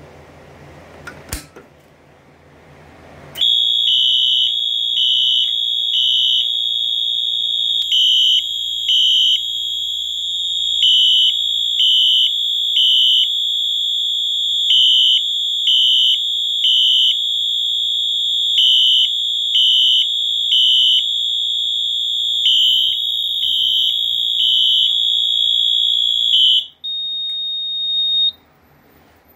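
A fire alarm system going into alarm after a pull station is pulled. A Wheelock MT-24-LSM horn sounds its continuous horn tone while a Wheelock HSR Exceeder horn strobe pulses over it in groups of three. The horns cut off about 27 seconds in, and a single tone carries on a moment longer.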